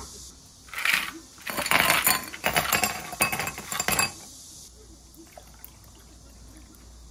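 Ice cubes tipped from a plastic scoop into glass tumblers, with a short rattle about a second in, then a dense run of clinking against the glass until about four seconds in. Water is then poured faintly from a plastic bottle over the ice.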